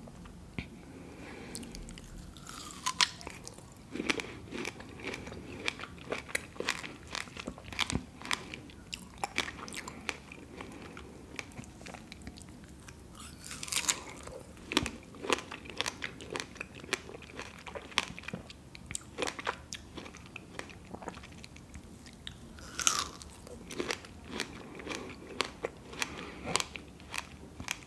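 Close-miked biting into and chewing large fresh strawberries: juicy bites and wet mouth clicks and smacks, with a few louder bites spread through.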